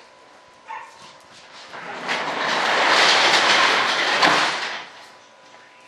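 A vehicle passing by, its noise swelling up over about a second and a half, then fading away about five seconds in.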